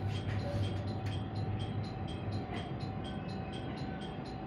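Inside a train's driver's cab as the train creeps slowly up to a standing train for coupling: a steady low running hum with a constant mid-pitched tone, and a faint regular ticking about two and a half times a second.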